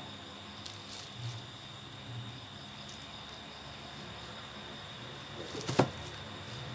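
Steady background hiss with a faint high whine, a few light clicks, and one sharp click near the end.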